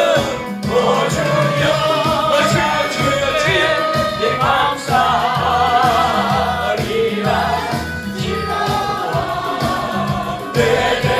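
A congregation and choir singing a Christian gospel hymn together over a band with bass and drums, with wavering vibrato in the voices.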